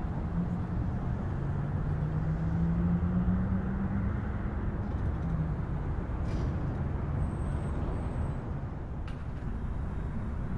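Steady city traffic rumble, with one vehicle's engine hum standing out at an even pitch for about the first five seconds before it fades back into the traffic.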